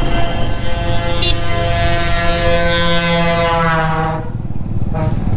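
Bus horn blowing one long steady note for about four seconds, dropping slightly in pitch before it cuts off, over the steady rumble of the motorcycle and wind noise.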